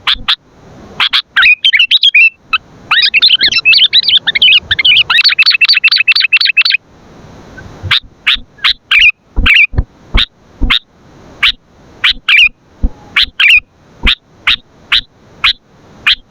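Sooty-headed bulbul calling loudly: short chirps, then a fast chattering run about three to seven seconds in, followed after a brief pause by a string of single sharp calls about two a second.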